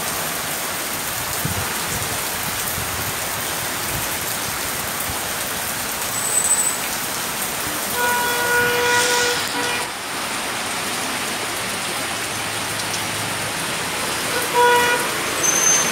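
Heavy rain pouring steadily. A vehicle horn sounds about eight seconds in for nearly two seconds, and briefly again near the end.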